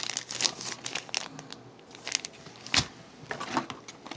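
Plastic lure packaging crinkling and rustling as the packs are handled and moved about in a cardboard box, with one sharper crackle a little under three seconds in.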